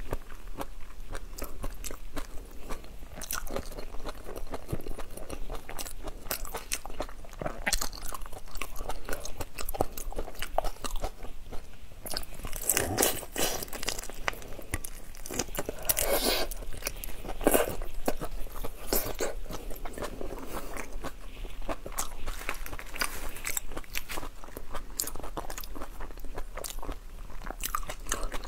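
Close-miked eating of raw marinated shrimp: crisp crunching bites into the shrimp and chewing, with many small sharp clicks throughout. The bites come thickest and loudest a little under halfway through.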